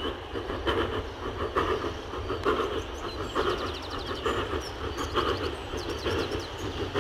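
Steam locomotive, an LNER V2 2-6-2, working a heavy freight uphill, its exhaust beating in a slow, even rhythm over a low rumble. Small birds chirp above it about three and five and a half seconds in.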